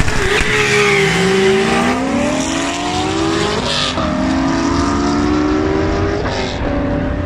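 Two race cars at full-throttle launch and acceleration: the turbocharged VR6 of an Audi S3 R30 Turbo and a Chevrolet Corvette's V8. The engine note climbs steadily through each gear and drops back at the shifts, about two seconds, three and a half seconds and six seconds in.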